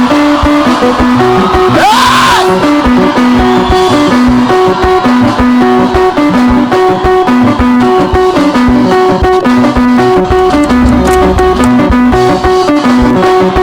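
Live band music led by a plucked guitar playing a repeating riff of short notes over a steady beat.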